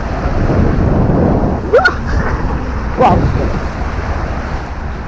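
Wind buffeting the microphone over small waves washing up on a sandy shore. Two short rising cries, about a second apart, stand out briefly near the middle.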